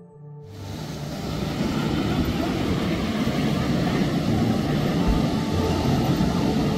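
A boat's motor running amid breaking surf and wind. The sound fades in over the first couple of seconds, then holds steady.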